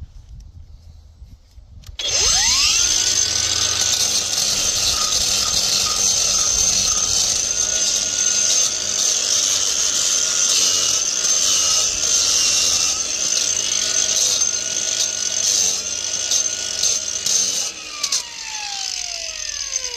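Cordless angle grinder spinning up about two seconds in, then grinding down cement benching, its steady whine dipping slightly now and then as the disc bites. Near the end it is released and winds down, its pitch falling.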